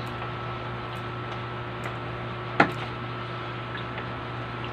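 Empty plastic soda bottles being handled, with a few faint ticks and one sharp click about halfway through, over a steady low hum.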